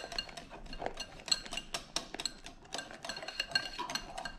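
Wire whisk beaten fast by hand against a ceramic bowl, a rapid, uneven clinking and scraping, as coffee, sugar and water are whipped into dalgona foam.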